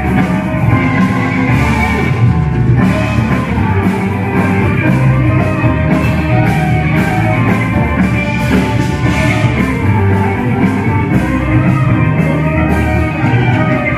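A band playing loud, steady instrumental music on electric guitar, bass guitar and drum kit, with no singing.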